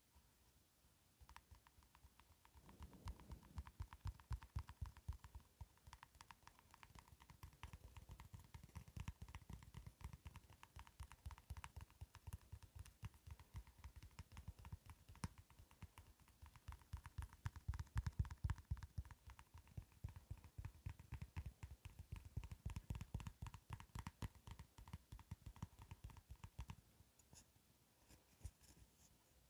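Fingertips and nails tapping and scratching quickly on a plastic slime-tub lid: a dense run of light clicks with dull thumps, starting about a second in and stopping near the end.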